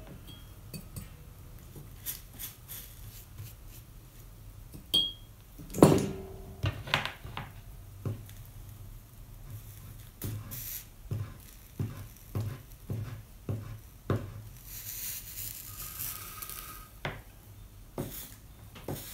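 Scattered light taps and clinks of a soldering iron and small tools against the glass and metal foil of a stained-glass lamp shade as its seams are tinned, with one louder knock about six seconds in and a brief soft hiss near the end.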